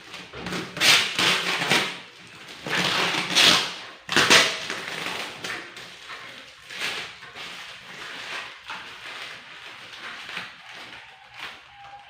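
A sealed cardboard box being opened by hand. Three loud tearing or rasping bursts come in the first five seconds, then quieter rustling and light knocks.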